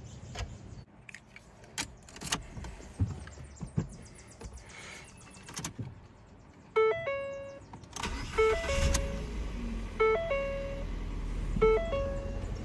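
Scattered light clicks of a small wrench on the battery terminal. About seven seconds in, the Ford Fiesta's dashboard warning chime starts, a two-note ding repeating about every second and a half. A second later the car's engine starts and runs at a steady low idle beneath the chimes.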